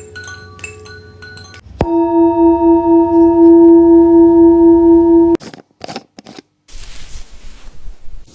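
A singing bowl struck once and ringing loudly, a steady, slowly pulsing tone that stops abruptly after about three and a half seconds. Short chime-like notes come before it and light handling rustles after.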